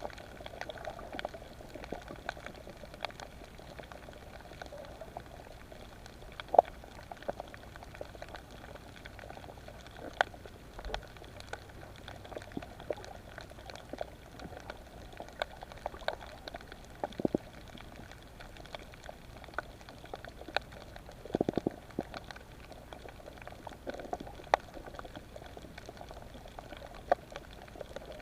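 Underwater sound on a reef: a steady hiss with many scattered sharp clicks and crackles, and a couple of short bubbling gurgles.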